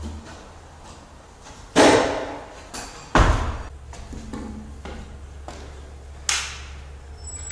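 Sharp knocks and thuds from floor-installation work on wooden joists and plywood: three loud ones about two, three and six seconds in, with a few fainter taps between, over a low steady hum.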